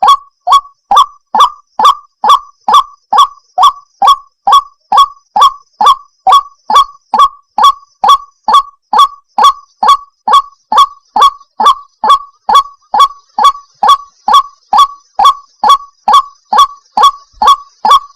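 White-breasted waterhen calling, a female call played as a trapping lure: a steady string of short, loud 'wak' notes, about two a second, each dropping slightly in pitch.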